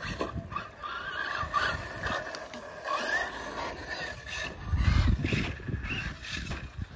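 RC off-road buggy driving on a dirt track: the motor's whine rises and falls with the throttle, with tyres scrabbling and clicking over the dirt, and a louder burst of low rumbling about five seconds in.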